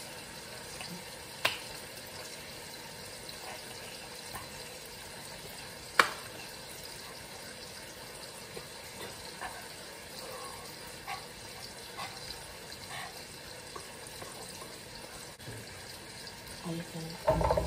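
Bacon sizzling steadily as it fries in oil in a pan, with a couple of sharp clicks and a clatter near the end.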